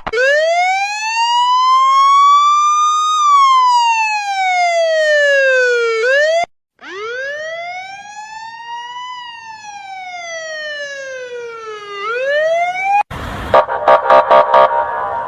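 Emergency-vehicle wail siren, sounded twice with a short break between. Each cycle rises slowly in pitch for about three seconds, then falls for about three seconds. Near the end a different sound cuts in, pulsing rapidly.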